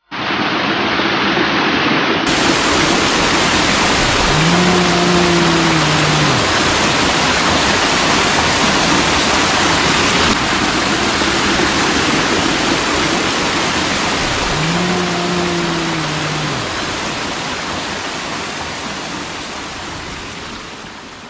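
Steady rushing water of a small waterfall, with a low, moan-like call about a second and a half long, holding its pitch and then dropping at the end. The same call comes twice, about ten seconds apart. Its source is unexplained; the hikers think it sounds something like a bear. The water fades out near the end.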